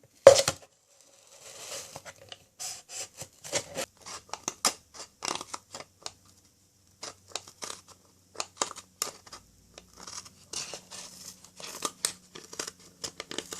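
Large scissors cutting around a cardboard Pringles tube: an irregular run of sharp snips and crunches, the loudest right at the start, with a short pause about halfway through.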